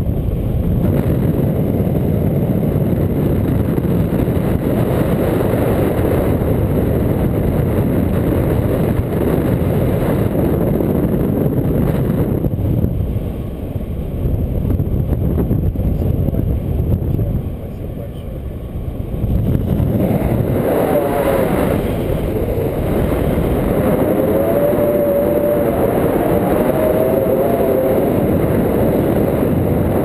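Wind buffeting the microphone of a camera carried by a tandem paraglider in flight: a loud, steady rushing low down that eases briefly twice. In the later part a voice comes faintly through the wind.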